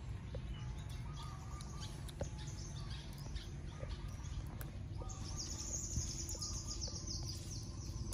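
Birds chirping, with a fast high trill starting about five seconds in, over a steady low background rumble.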